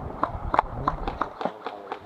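A run of sharp clicks or taps, about three a second, with voices in the background.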